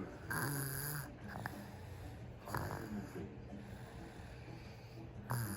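A sleeping baby snoring: three snores about two and a half seconds apart.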